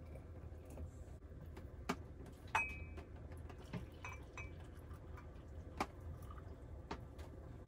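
About five scattered clinks and knocks of kitchenware being handled while making coffee (a stainless kettle, a glass jar and a ceramic mug), two of them ringing briefly, over a low steady hum.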